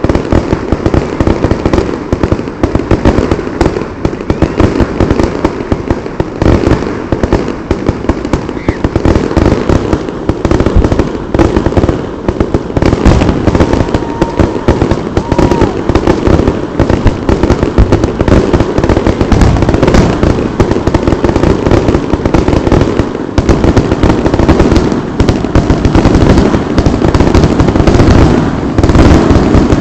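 Aerial fireworks shells bursting in a rapid, continuous barrage, the bangs and crackles following each other with no pause between them.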